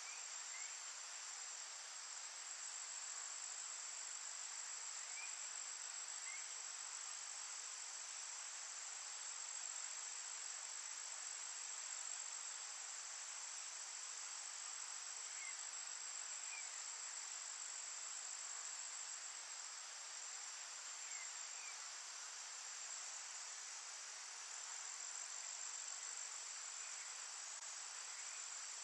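Steady chorus of insects such as crickets, a constant high-pitched trill that does not let up, with a few faint short chirps now and then.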